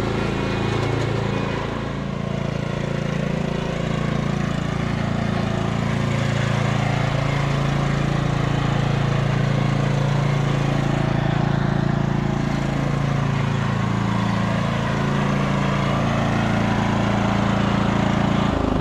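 Craftsman riding lawn tractor's engine running steadily as the tractor drives along.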